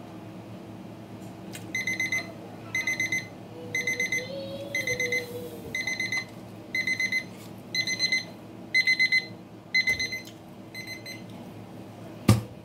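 Digital timer alarm beeping in quick groups of about four high beeps, the groups repeating steadily for about nine seconds and then stopping: the challenge's seven-minute time limit is up. A single sharp knock follows near the end.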